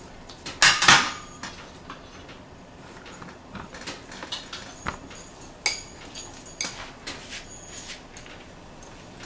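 Kitchenware clattering on a countertop: two loud knocks about a second in, then scattered lighter clinks and taps of metal and glass, some with a brief metallic ring.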